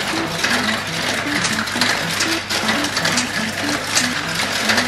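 Marbles clicking and rattling as they roll along the rails and through the tiles of a GraviTrax marble run, with many quick clicks close together. A simple melody of background music plays underneath.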